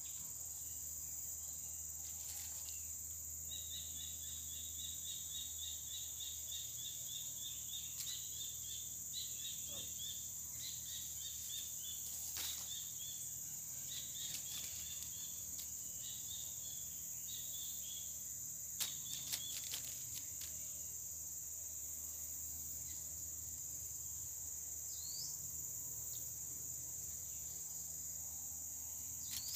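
Steady high-pitched drone of forest insects, with a fast run of repeated high chirps from a few seconds in until about halfway, and a few short clicks later on.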